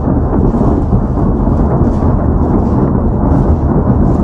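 Loud, continuous rumbling of a rocket artillery barrage, the launches and blasts running together without a break.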